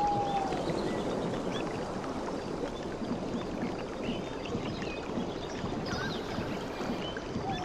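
Sea waves washing steadily, with faint, scattered short bird chirps over them.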